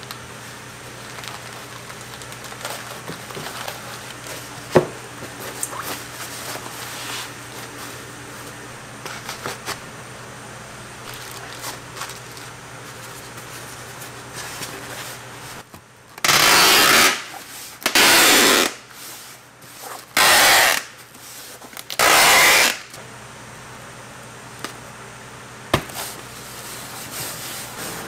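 Plastic bags and foil bubble wrap rustling with small clicks over a steady low hum, then four loud ripping strokes of about a second each, typical of packing tape pulled off a roll to seal a styrofoam shipping box.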